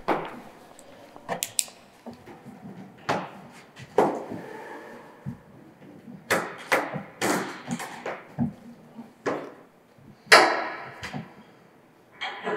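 A hard carrying case handled: set down, then knocked and clicked open in a string of irregular knocks and clicks, with one sharp clack, the loudest, about ten seconds in.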